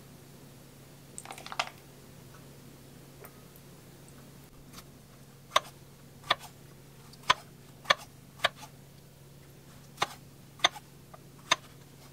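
Kitchen knife slicing strawberries against a wooden cutting board: eight sharp, irregularly spaced knocks in the second half. About a second and a half in there is a brief cluster of light clicks as a spoon scoops yogurt into a glass bowl, over a faint steady low hum.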